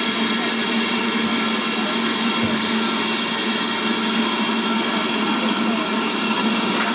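BR Standard Class 4 4-6-0 steam locomotive No. 75029 standing in steam, giving a steady hiss with a constant hum underneath.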